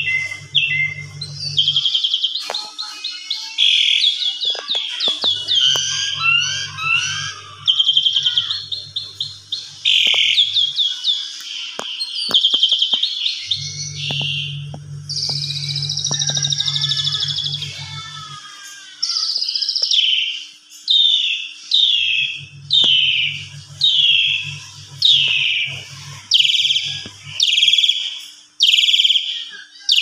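Javan pied starling (jalak suren) singing loudly in an excited, varied song of chirps, rattles and whistles. The song ends in a run of repeated falling whistled notes, about one a second, over the last third. This is the full-on excited 'emosi' song that keepers use to provoke other starlings into singing.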